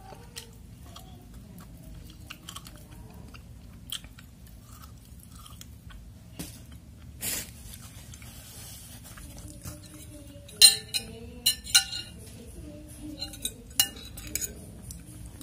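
Chewing and crunching on food. About ten seconds in, a metal spoon and fork clink sharply several times against a glass soup bowl; these clinks are the loudest sounds.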